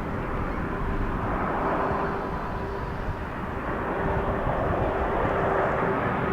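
Jet airliner's engines running, a steady rushing noise with a steady hum, swelling a second or so in.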